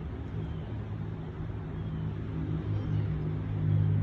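A low, steady engine or motor hum that grows louder near the end.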